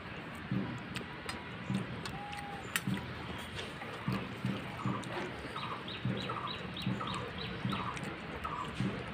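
A bird calling in the background, short notes repeated about twice a second from a little past midway, over soft low thumps.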